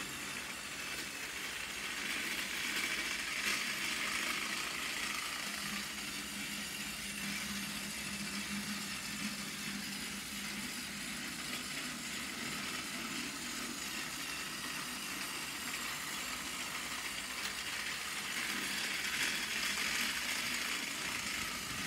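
Battery-powered Plarail toy engine running on plastic track: a steady small-motor whir with wheel and gear rattle. It grows louder twice, a few seconds in and near the end.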